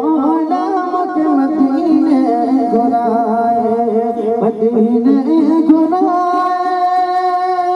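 A man singing a devotional Urdu naat through a microphone and PA, in wavering, ornamented phrases that settle into a long held note near the end.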